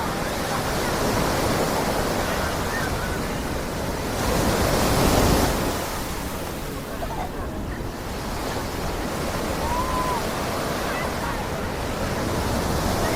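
Ocean surf washing onto the beach in a steady hiss, with one wave surging louder about four seconds in and then falling away.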